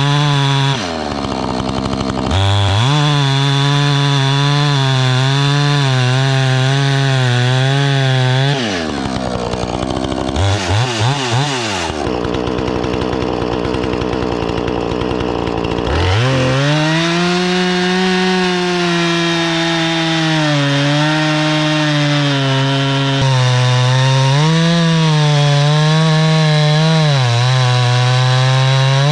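Two-stroke chainsaw running hard while cutting up a log. Its engine pitch sags and picks back up a few times as the throttle is eased and opened again, with a sharp rev-up about two thirds of the way through.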